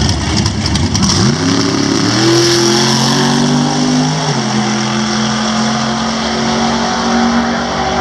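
Two Ford drag cars, a Thunderbird and a Mustang II, launching down the strip at full throttle. The engine pitch climbs about a second in, holds, drops at a gear change a little after four seconds in, then pulls on steadily.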